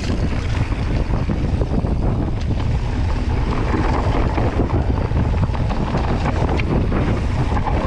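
Wind buffeting the microphone over the rumble of a mountain bike's tyres on a dry dirt trail at speed, with many small clicks and rattles from the bike over the bumps.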